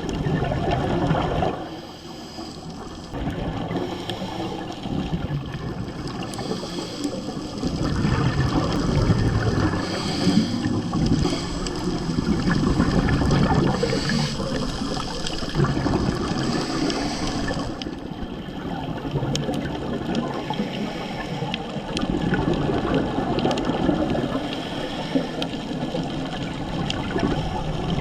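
Underwater sound of a scuba dive: a scuba regulator's exhaust bubbles gurgling and rushing, swelling and falling back with the diver's breaths.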